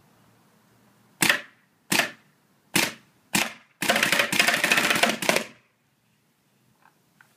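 Bob Long Victory V1 poppet-valve paintball marker firing on semi-auto: four single shots, then a rapid string of shots lasting nearly two seconds. It is cycling cleanly without leaks, just back from a tune.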